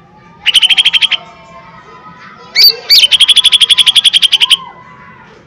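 Cucak ijo mini (small leafbird) singing two loud, rapid trills of sharp repeated notes: a short one about half a second in, then a rising note followed by a longer trill of about twenty notes that stops near the end. These are the hard 'shots' (tembakan) that keepers use to provoke other birds.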